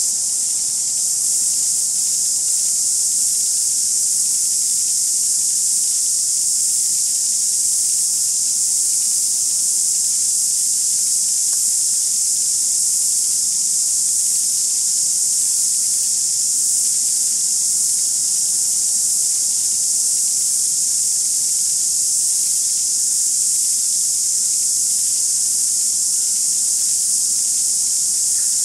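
Dense, steady insect chorus: one unbroken high-pitched buzzing drone that never pauses or changes.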